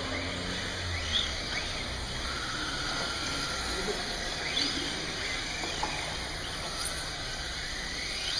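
Radio-controlled drift cars running around a track: a steady hiss with short rising and falling whines as the cars speed up and slow down.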